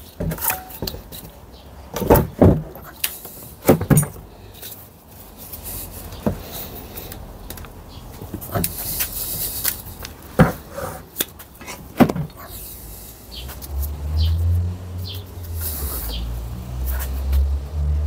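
Sharp metallic knocks and clinks of tools and steel parts being handled during teardown of a Toyota five-speed manual gearbox, with a low steady hum starting near the end.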